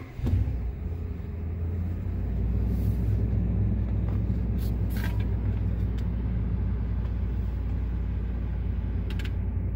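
2016 Ram 1500 pickup's engine starting, catching at once, then idling steadily, heard from inside the cab. The low rumble settles into a deeper, even hum about two seconds in.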